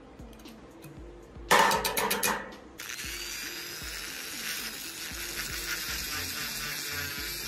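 Background music over workshop sounds. About a second and a half in comes a brief, loud clatter of rapid clicks and knocks from hand-tool work on steel tubing, lasting about a second. After it, a steady hiss continues.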